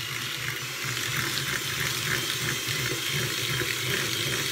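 Electric hand mixer running steadily, its beaters whisking eggs and sugar in a bowl, beating them toward the pale, fluffy stage.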